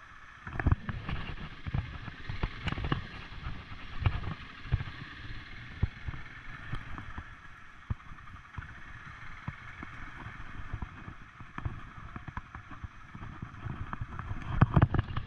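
ATV (quad bike) riding along a rough path, heard from the rider's seat: the engine runs with a steady hum, broken by frequent irregular knocks and thumps as the quad jolts over the surface, a cluster of stronger ones near the end.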